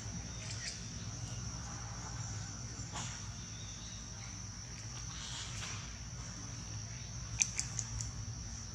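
Insects droning steadily at one high pitch, with a few short sharp clicks near the end.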